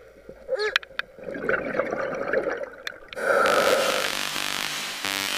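Underwater sound picked up by a spearfisher's camera: spells of hissing breath and bubbling noise, with a few sharp clicks and a short squeak about half a second in.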